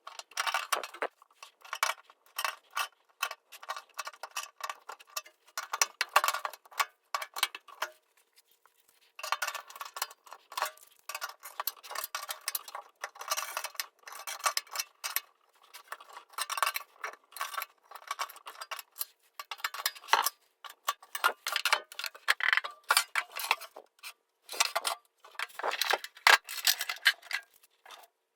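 Quick runs of small metallic clicks and taps as a bent steel tool case is worked straight, with a pause about eight seconds in before the tapping resumes.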